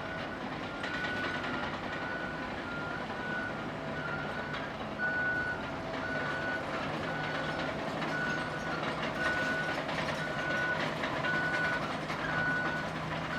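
Caterpillar bulldozer's diesel engine running under a reversing alarm beeping about once a second: the machine backing up.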